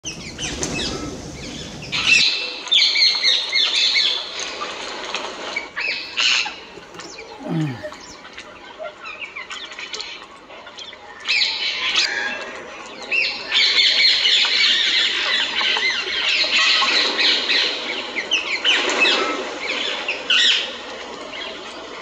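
Many birds calling and chirping at once in dense, overlapping bursts, with wings flapping as birds fly in and out of a feeding flock.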